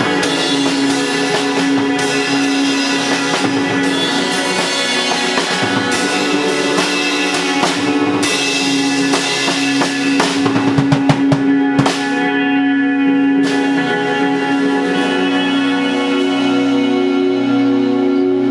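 Live band playing an improvised rock piece on guitar and drum kit: sustained guitar chords over drums, with a fast run of drum hits about ten seconds in, then a held chord ringing on.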